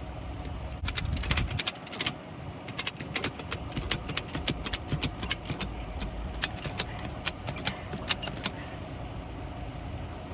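Ratchet strap being cranked tight around a tractor tire, a run of sharp metal clicks several a second, stopping about eight and a half seconds in. The strap squeezes the tread to push the tire's bead out toward the rim so it can be seated.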